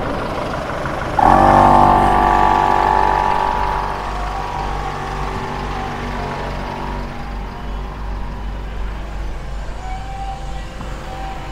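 Portable T-Max 4x4 air compressor running and pumping air into a tyre through a coiled hose. About a second in the sound jumps louder with a steady hum, then slowly eases off.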